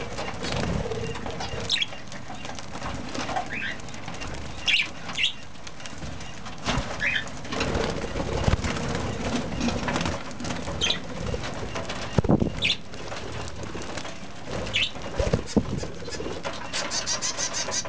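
Budgerigars and a cockatiel flapping their wings in flight, with short chirping calls every second or two and a quick run of ticks near the end.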